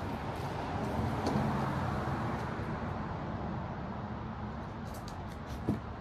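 Steady low hum of road traffic, swelling about a second in, with one short knock near the end.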